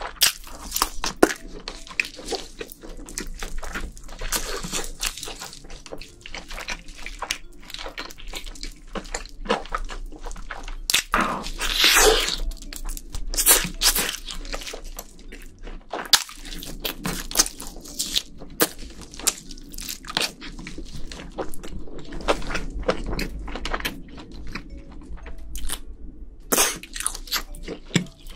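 Close-miked biting and chewing of red-sauced fried chicken: a steady run of crisp crunches with wet chewing between them, loudest about twelve seconds in.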